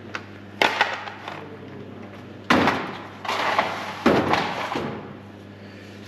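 Several sudden knocks and clatters of objects being handled and set down, in a few quick groups, over a steady low machine hum.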